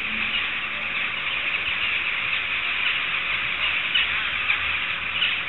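Dense, unbroken chatter of a large flock of birds calling all at once, many overlapping chirps.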